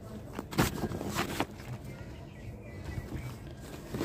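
A few short, scattered rustles and scrapes of compost and soil being handled by hand, with crinkling from a woven plastic sack.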